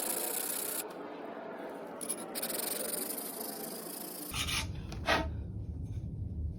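Sandpaper rubbing on the freshly cut end of a titanium handlebar tube, a steady light rubbing with a couple of short scrapes about four and a half and five seconds in.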